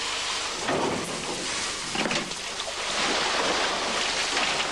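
Water spraying from a garden hose into a polar bear enclosure and splashing, a steady rushing hiss that swells and eases every second or so.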